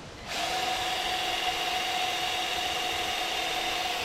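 A power tool motor starts a moment in and runs steadily with an even whine.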